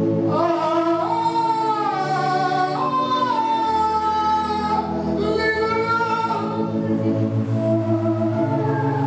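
Gospel music: a sung melody on long, gliding notes over sustained organ chords. The singing drops out a little past the middle, leaving the organ chords.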